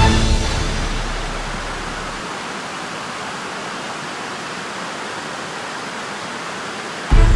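Steady rushing of an artificial waterfall, sheets of water cascading down tall vertical walls into a pool. Music fades out at the start and cuts back in near the end.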